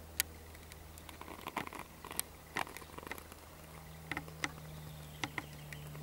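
Irregular clicks and knocks of a camcorder being handled and panned, a dozen or so sharp ticks scattered over a few seconds, over a steady low hum.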